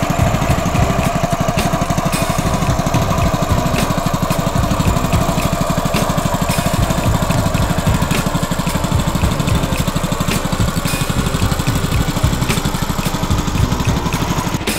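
Small engine of a portable water pump running steadily at a constant speed, pumping from the canal into the field.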